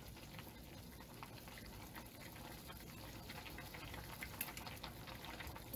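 Faint, steady bubbling of green beans and ham hocks boiling in an electric cooker, with scattered small pops and ticks.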